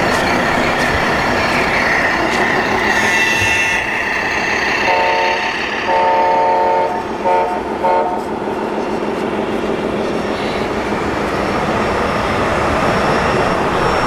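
Multi-tone air horn from a radio-controlled truck's sound module, blown four times: a short blast, a long one, then two short ones. It sounds over a steady din of hall noise and running model trucks.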